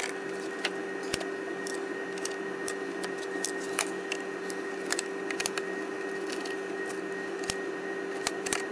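Scattered small clicks and taps of hands handling a Dell XPS laptop's plastic and metal parts and screws during disassembly, over a steady background hum.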